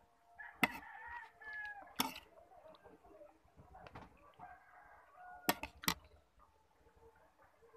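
A rooster crowing once in the background near the start, with a fainter call later on. Four sharp clicks are the loudest sounds: one right after the crow begins, one about two seconds in, and two in quick succession about five and a half seconds in.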